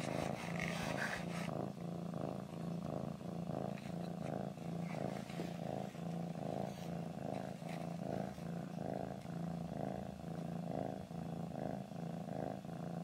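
Small domestic cat purring steadily, the purr pulsing evenly in time with its breathing.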